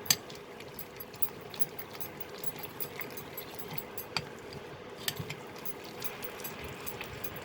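A spoon stirring thick gram-flour batter in a bowl, clinking and tapping against the bowl's sides in small irregular clicks, with a sharp clink at the start. A faint steady hum runs underneath.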